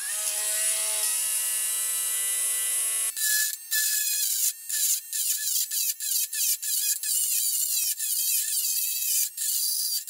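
Cordless Dremel rotary tool switched on and spinning with a steady whine. About three seconds in, its bit bites into the glazed ceramic candlestick: the pitch wavers and the sound keeps breaking off briefly as it grinds at the glaze.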